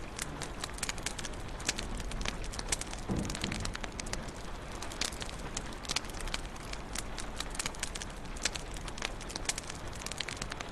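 Wood fire crackling in a fireplace: a steady hiss of burning with frequent irregular sharp pops and snaps, and a brief low rumble about three seconds in.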